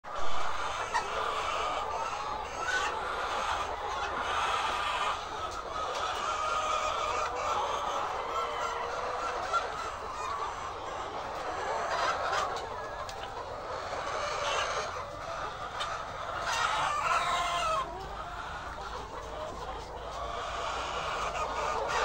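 A large flock of white laying hens clucking and calling over one another in a continuous din.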